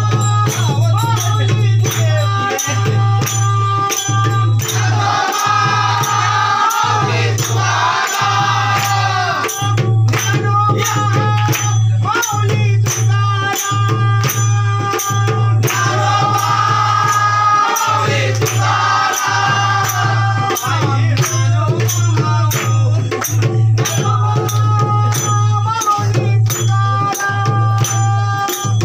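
Devotional aarti song to Ganesh, voices singing over a steady, rattling percussion beat.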